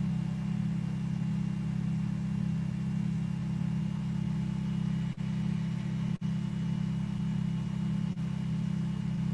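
A steady low hum, with a few faint higher steady tones over it, that cuts out for an instant three times in the second half.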